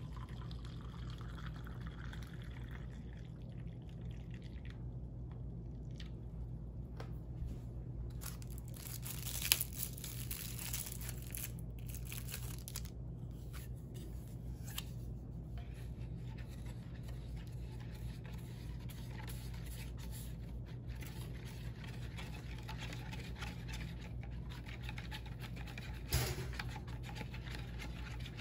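Small kitchen handling sounds on a countertop: faint rustling and liquid noises over a steady low hum, with a sharp knock about a third of the way in and another near the end.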